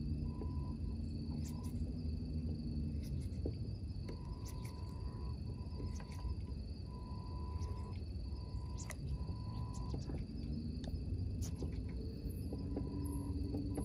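Night insects, crickets among them, chirring steadily in several high tones, with a broken-up tone stopping and starting throughout. Under it runs a low rumble, with an engine-like hum near the start and again near the end, and scattered faint clicks.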